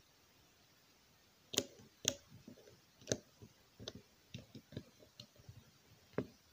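Sharp plastic clicks and clacks of keycaps being pushed onto mechanical keyboard switches in a 3D-printed switch tester. Two loud clicks come about a second and a half in, then a run of lighter clicks.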